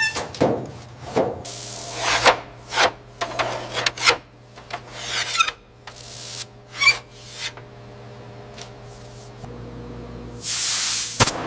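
Hand tool rubbing or scraping a surface in repeated short strokes, about two a second, then falling still; near the end a loud hiss of about a second, cut off by a sharp click.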